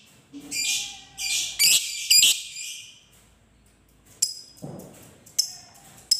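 A Fischer's lovebird gives about two seconds of rapid, high-pitched chattering in several quick runs, the long chattering song that keepers call ngekek. After a short pause it makes three sharp single chirps in the last two seconds.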